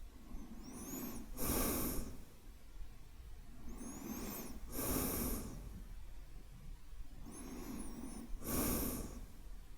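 A man's slow, deep breathing recorded close to the microphone as sleep ASMR: three unhurried breaths about three and a half seconds apart, each swelling into a louder rush of air.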